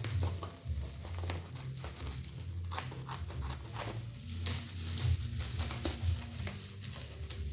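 Plastic parcel packaging crinkling and tearing as it is unwrapped by hand, in many short irregular crackles.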